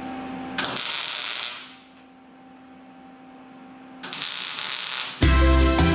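Two spells of rapid mechanical ratcheting, each about a second long, over a faint steady hum; background music starts near the end.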